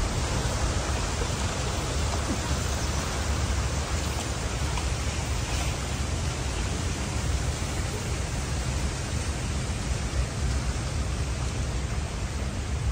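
Wind blowing on the microphone: a steady rushing noise with a strong, unsteady low rumble.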